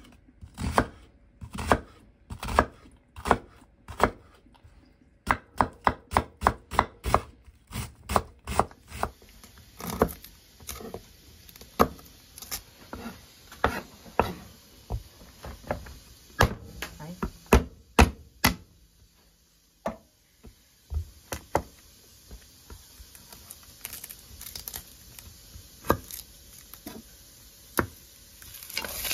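Kitchen knife chopping on a cutting board, in uneven strokes a few times a second. There is a quicker run of strokes about five seconds in and a brief pause a little past the middle.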